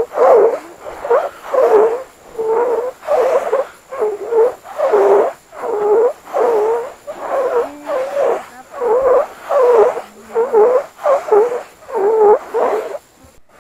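Singing sand whistling in repeated short squeaks, about two a second, each a wavering tone, as it is stroked or stepped through.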